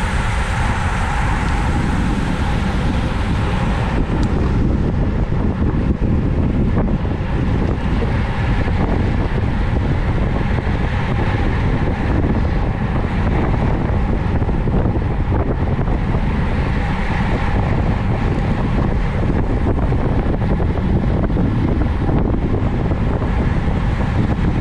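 Wind rushing over a camera microphone on a bicycle ridden at race speed: a steady, loud rumble.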